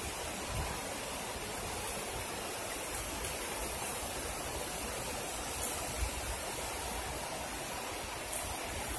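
Steady rush of river water running over rocks below a dam, with a few faint clicks about halfway through and near the end.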